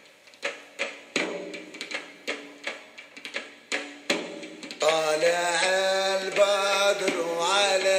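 Background music: a drum beating about three strikes a second, joined about five seconds in by a voice singing a long, wavering melodic line.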